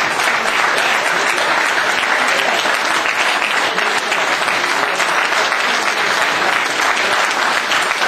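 Audience applauding steadily, many people clapping at once at the close of a stage performance.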